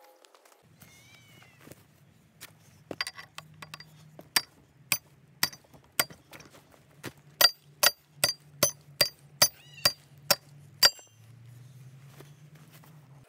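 A hammer striking steel, each blow ringing sharply. The blows come scattered at first, then settle to about two a second, and stop before the end.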